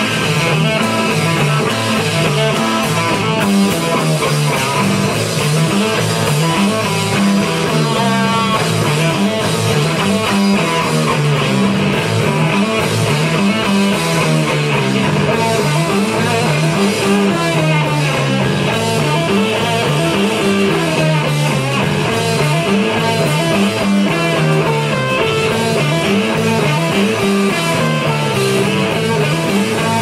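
Live rock band playing loudly and without a break, electric guitars to the fore with drums behind.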